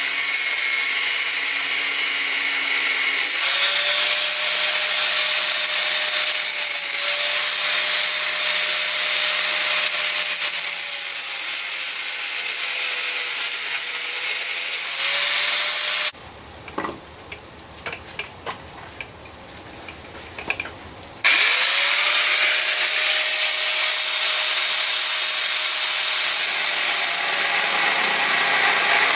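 Angle grinder cutting into a slab of 5160 spring steel, a steady harsh hiss over a high motor whine whose pitch shifts as the wheel bites. It cuts out about sixteen seconds in, a few light knocks follow, and it starts again about five seconds later, its whine rising as it spins back up.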